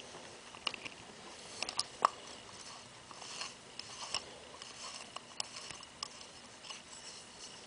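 Faint, scattered light clicks and taps of small metal parts being handled as the top screw is threaded back into a Scotts steering damper.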